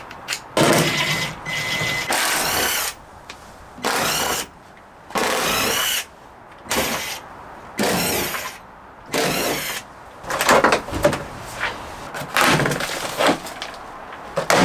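Cordless drill-driver with a 10 mm socket spinning out bolts in about six short bursts of a second or less, the motor's pitch rising and falling in each. In the last few seconds, irregular clattering and scraping as a loose plastic floor duct cover is handled.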